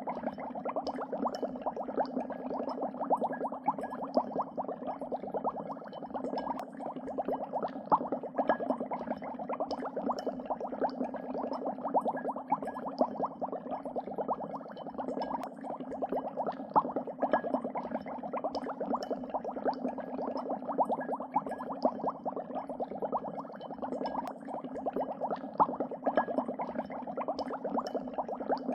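Dry ice bubbling as it sublimates: a steady, dense stream of rapid little pops and gurgles.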